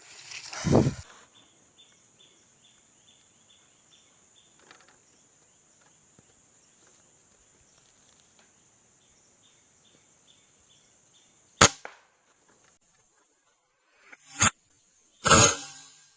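Air rifle shots: three short sharp cracks near the end, the last two less than a second apart. Before them, a steady high insect drone with a rapid insect chirping, and a brief noisy rustle about a second in.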